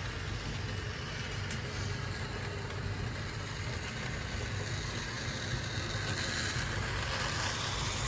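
HO-scale Ibertren Talgo model train running along the track pulling its coaches: a steady low motor hum over an even rolling hiss of wheels on the rails.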